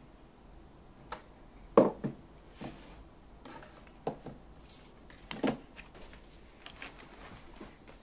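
A handful of light knocks and clunks of small objects being handled and set down on a desk, among them a wooden lid fitted onto a glass candle jar. The loudest knock comes about two seconds in and another strong pair near the middle, with fainter ticks toward the end.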